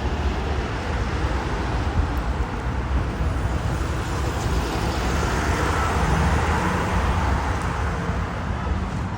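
Steady road traffic noise: a continuous wash of vehicle sound, strongest in the low end, with no distinct bangs.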